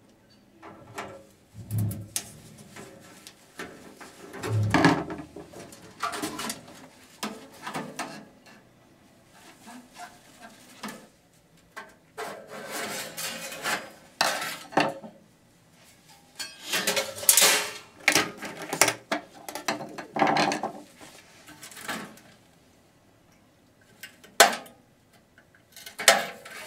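Metal parts of a stainless-steel commercial coffee maker being handled, with irregular clattering, knocking and scraping. There are a couple of heavier knocks early on.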